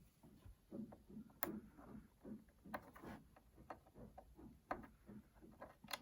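Faint, irregular small clicks and taps of tools and small parts being handled inside an opened iMac during disassembly.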